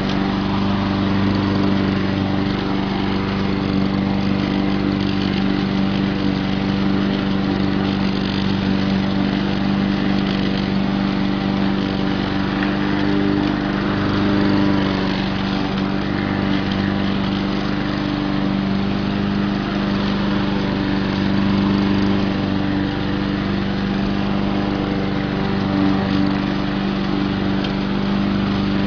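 Poulan Pro self-propelled push mower with a Honda overhead-cam engine running steadily while mowing grass.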